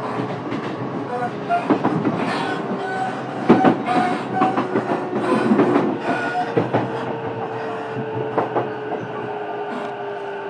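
Running noise aboard a JR East E233 series electric train's motor car: wheels knocking over rail joints, the sharpest knocks about three and a half seconds in, over a steady rumble and a steady whine from the traction motors, with a few brief wheel squeals.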